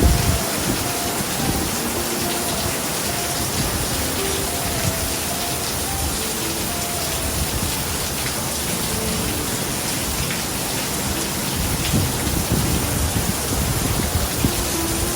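Heavy typhoon rain pouring down steadily, a dense hiss with irregular low rumbles underneath.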